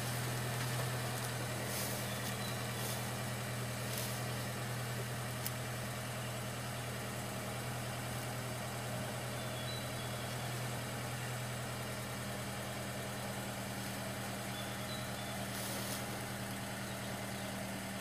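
A vehicle engine idling steadily with a low, even hum.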